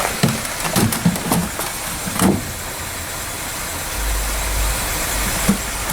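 A few short knocks and clatter of hard items being handled and shifted among dumped electronics, over steady outdoor background noise. A low rumble comes in about four seconds in.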